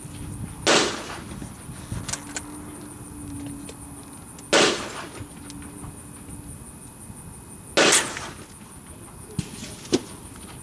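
Three shots from a CZ 453 bolt-action .22 LR rifle, about three and a half seconds apart, each a sharp crack that trails off briefly, with a few faint clicks between them.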